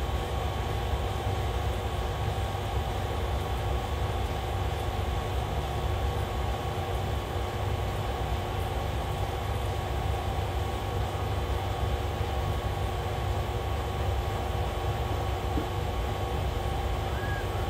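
Steady mechanical hum over a low rumble, with several constant tones held throughout and no change in level.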